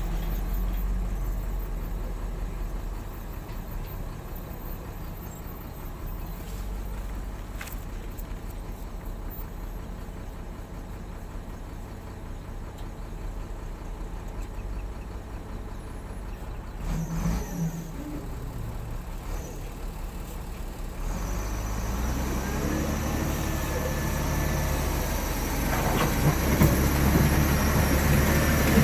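Heavy diesel engines running with a low steady rumble. From about two-thirds of the way in it grows louder and the engine pitch rises and falls as a wheel loader drives in close.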